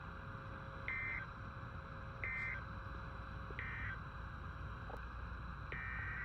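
Emergency Alert System SAME digital data bursts on a weather-radio broadcast: three short, identical screechy bursts about a second and a half apart, the end-of-message code that closes an alert. Near the end a longer data burst begins, the header of the next alert.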